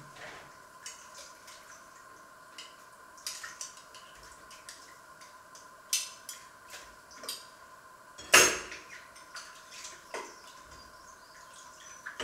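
Washing up by hand at a kitchen sink: dishes and cutlery clinking with water dripping and splashing, and one sharp clatter about eight seconds in, over a faint steady hum.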